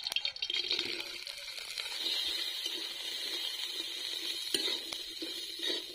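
Broken pieces of bori (sun-dried lentil dumplings) tipped into hot mustard oil in a kadai with a short clatter, then sizzling steadily as they fry. A single knock of the metal spatula on the pan comes about halfway through.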